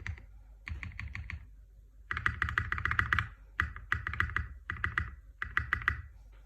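Mechanical keyboard with lubed Black Cherry Pie linear switches, an FR4 plate and SA profile keycaps being typed on in quick bursts of keystrokes with short pauses between. The longest, loudest burst comes about two seconds in, and the typing stops shortly before the end.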